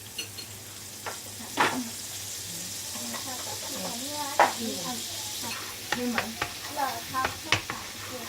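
Mushrooms sizzling in butter in a frying pan while being stirred, with a utensil knocking and scraping against the pan several times in the second half.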